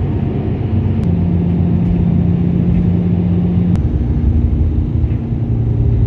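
Car driving, heard from inside the cabin: a steady low engine hum with road noise. The hum's pitch shifts about a second in and again near four seconds, each time with a faint click.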